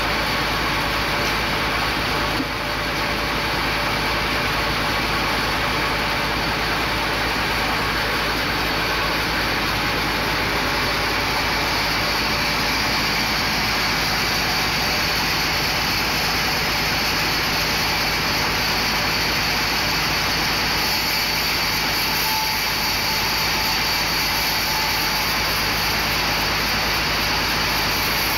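Large vertical band sawmill running, a loud, steady, dense machine noise that hardly changes from start to finish.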